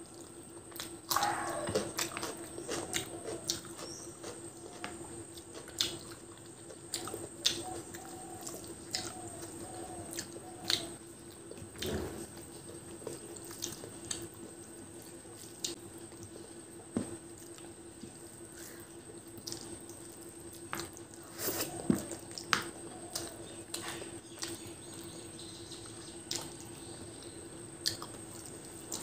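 Close-up wet eating sounds: fingers squishing rice into chicken curry gravy, with chewing and lip smacks heard as scattered sharp clicks. A steady faint hum runs underneath.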